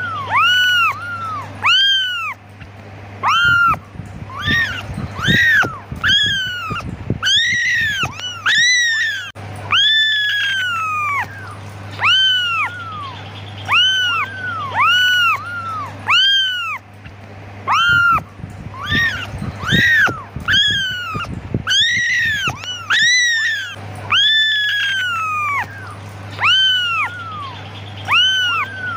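Several young kittens meowing over and over, high mews that rise and fall, about one a second and at times overlapping: kittens calling for their mother.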